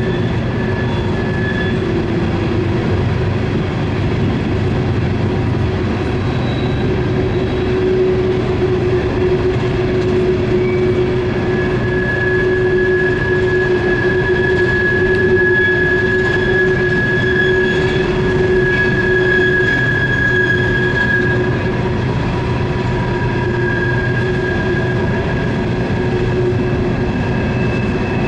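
Norfolk Southern coal train's hopper cars rolling around a tight curve: a steady rumble of steel wheels on rail with wheel flange squeal screeching over it. Several squeal pitches hold for seconds and shift, strongest about halfway through.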